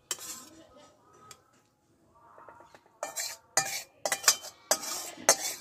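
A metal spatula scraping cooked curry out of a metal kadai onto a plate, with metal-on-metal scrapes and clinks. The scrapes are light at first, and from about halfway through come as a run of louder, quick scrapes and clatters.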